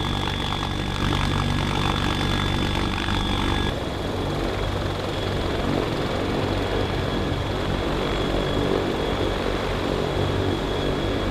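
CH-53K King Stallion heavy-lift helicopter, its three turboshaft engines and rotors running steadily. First it is heard from inside the cabin in flight, with a high turbine whine over a low drone. At about four seconds the sound cuts to the helicopter hovering low outside, a rough, beating rotor noise.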